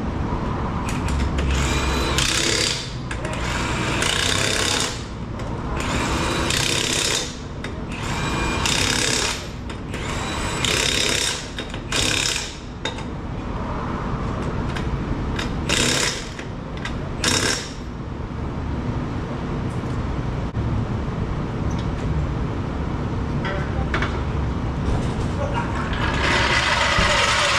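Impact wrench run in repeated bursts of about a second each, tightening the lug nuts on a trailer wheel newly fitted with a tire. The bursts come close together through the first half, with two short ones around the middle and a longer one near the end.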